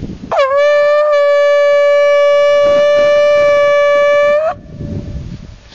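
Shofar blown in one long, steady note of about four seconds, with a brief wobble in pitch as it starts and a sharp cut-off.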